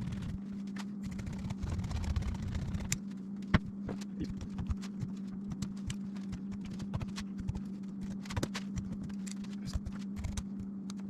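Irregular light knocks and taps of hand work on the boat, one sharper knock about three and a half seconds in, over a steady low electrical hum.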